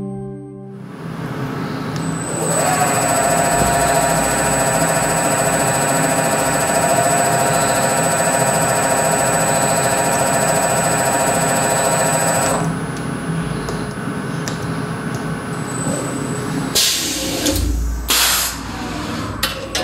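SkyfireCNC SVM1VMC CNC mill running a tool change. A steady machine whine with many overtones starts about two seconds in, rises briefly, holds, and stops around twelve seconds. Then the carousel automatic tool changer swings in to the spindle, with a couple of sharp hisses of compressed air near the end.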